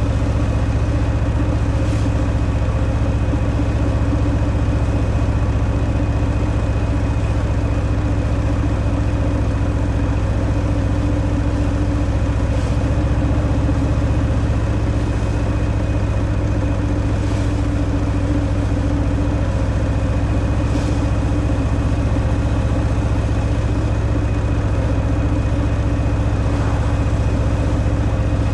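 Harley-Davidson Fat Boy's Milwaukee-Eight 114 V-twin engine running through its stock exhaust at a steady engine speed while cruising, with no clear revving up or down.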